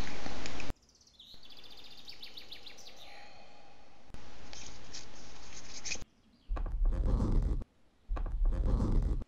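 Birds chirping in forest ambience, which steps up in level about four seconds in. A loud steady noise cuts off abruptly under a second in. Near the end come two loud, deep bursts of noise, each about a second long.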